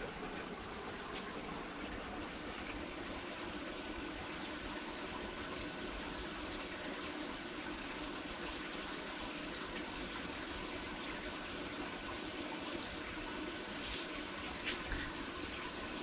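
Steady rushing background noise, water-like in character, with a couple of faint ticks near the end.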